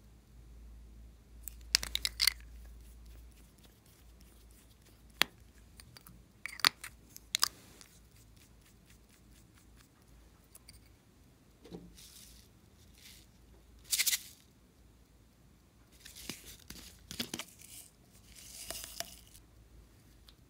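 Small plastic cat-paw lipstick tubes being handled: a handful of sharp plastic clicks and snaps, then several short scratchy rasps later on, as lipstick is worked and broken off into chunks.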